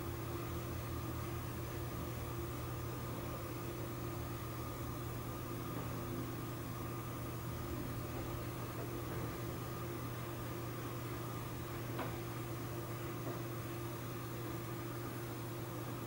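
A steady mechanical hum made of a few constant tones over a light hiss, with a single faint click about twelve seconds in.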